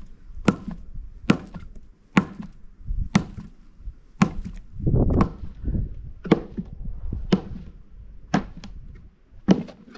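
A hand tool chopping into wood, about once a second, hollowing out the centre of a log section for a log beehive.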